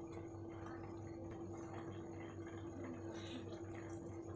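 Faint simmering of noodle soup in a metal pan, with a few light clicks of a spoon against the pan, over a steady low hum.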